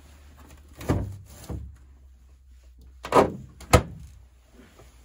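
Four knocks and thumps in two pairs, the second pair louder and ending in a sharp knock.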